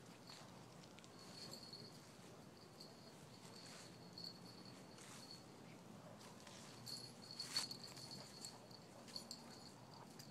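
Near silence, with a faint, high, steady pulsing trill and one sharp tick about seven and a half seconds in.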